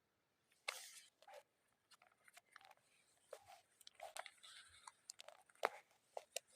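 Faint, irregular clicks, scrapes and crackles of eating rice porridge with beef out of a foil tray, with a spoon knocking and scraping against the foil. The sharpest click comes a little past the middle.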